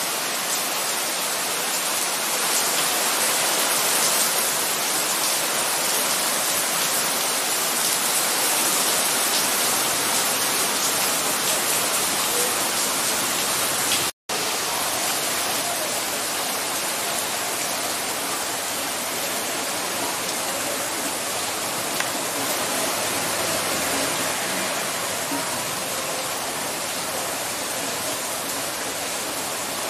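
Heavy rain falling, with storm runoff rushing down a hillside channel: a steady, dense hiss. It cuts out for an instant about fourteen seconds in, then the rain carries on.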